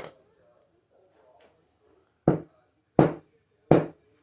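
Three loud knocks about 0.7 s apart, after a sharp click: a small generator carburetor body being banged against a hard surface to knock loose a stuck centre piece.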